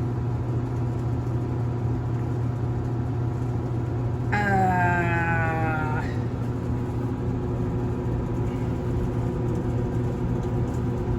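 Washing machine running with a steady low hum and a set of steady tones, the noise its owner dislikes and takes for the machine possibly draining. About four seconds in, a pitched whine falls in pitch for under two seconds.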